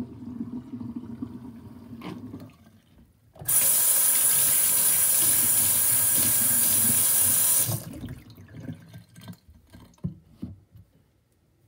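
Soapy water gurgling down a stainless steel kitchen sink drain, then faucet water spraying loudly into the sink for about four seconds to rinse it, cutting off suddenly. A few light knocks follow as the metal drain strainer is handled.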